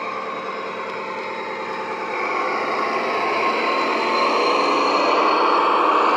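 Diesel engine sound from a LokSound 5 DCC sound decoder, played through a small EM2 speaker inside a model Class 41 Warship diesel-hydraulic locomotive as it runs; the recording is of a German locomotive with the same engine. The engine note gets louder from about two seconds in as the model approaches.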